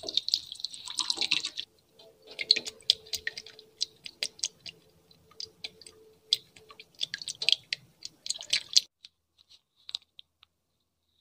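Close-miked ASMR foley crackling and clicking meant to imitate a head being shampooed and lathered. It starts as a dense fizzy crackle, breaks into irregular crisp clicks and crackles, and stops about nine seconds in.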